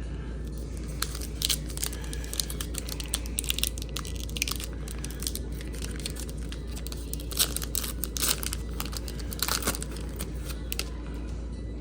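A 1992-93 Fleer Ultra basketball card pack wrapper being torn open and crinkled, in quick, irregular crackles.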